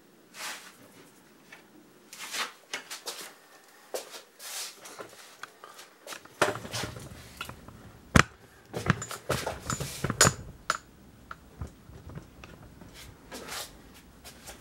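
Scattered rustles, taps and knocks of handling, with a low rumble and sharper knocks from about six seconds in as the camera is picked up and moved.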